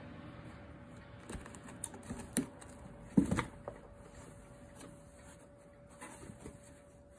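Kittens scrambling and wrestling in a cardboard box: scattered light taps, scuffs and knocks on the cardboard, with the loudest thumps a little after three seconds in.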